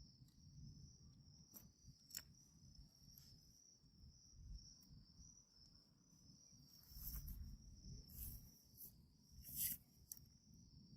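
Faint, steady high chirring of crickets, with a few soft knocks and scrapes of handling; the sharpest comes near the end.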